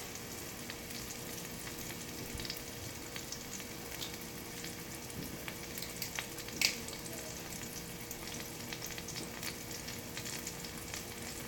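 Chicken frying in olive oil in a pot: a steady sizzle with many small crackling pops, and one sharper click about six and a half seconds in.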